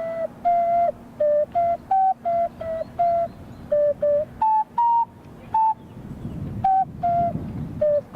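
An ocarina playing a short melody of about sixteen clear, separate notes, stepping up and down, with brief gaps between them.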